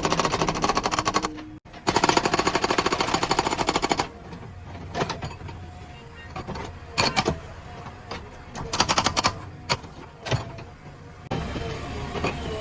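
Loud, fast, even mechanical hammering with a brief break about a second and a half in. It stops about four seconds in and gives way to scattered short clattering bursts. A steadier engine noise starts near the end.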